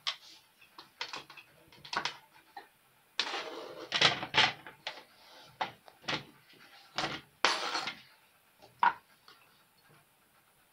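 Kitchen knife cutting potato on a plastic cutting board, a few sharp knocks about a second apart. About three seconds in comes a rush of scraping as the potato pieces are slid off the board into a plastic bowl, then several clattering knocks as they land and the board is handled.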